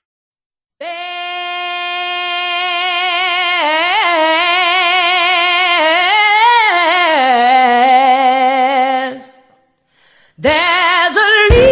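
Gospel singing: a solo female voice holds one long note with vibrato, unaccompanied, with a short melismatic run in the middle. It stops, and after about a second of silence the music comes back in near the end.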